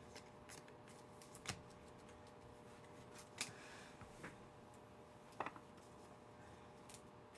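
Near silence with a handful of faint, brief clicks and rustles from trading cards and foil packs being handled.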